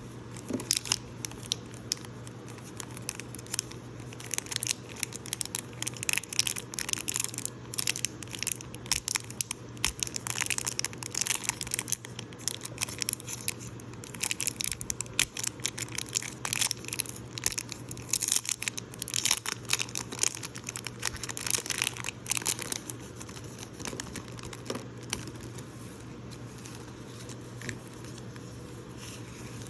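Packaging being torn open and crinkled by hand: a rapid, irregular run of crackles and rustles that thins out about three quarters of the way through, over a steady low hum.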